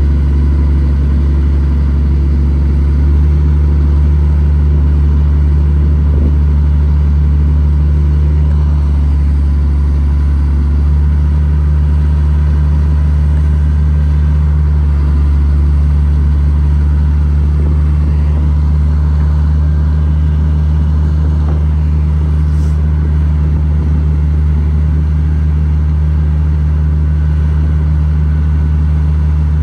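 Sumitomo S430 high-reach demolition excavator's Mitsubishi diesel engine running steadily, a deep even drone, while the hydraulics raise the long demolition boom.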